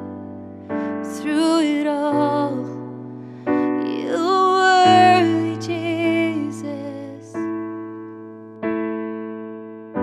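A woman singing a slow worship song over held chords on a Yamaha digital piano, with a new chord struck about every second and a half. Her voice stops about seven seconds in, leaving only the piano chords.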